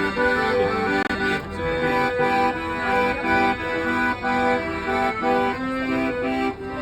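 Instrumental background music: held, reedy chords that change in a steady rhythm.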